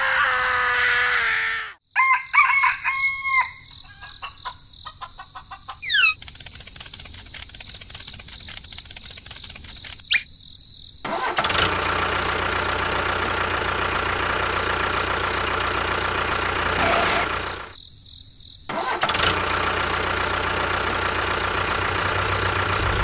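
A rooster crows, then a fast mechanical ticking gives way to a small motor running steadily, with a short break in its sound about two-thirds of the way through.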